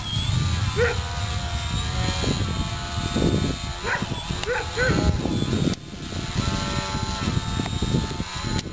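Electric motor and propeller of a balsa 3D aerobatic RC airplane hanging nose-up in a hover: a steady whine of several held pitches over a low rumble, with a sudden brief drop in level a little past halfway.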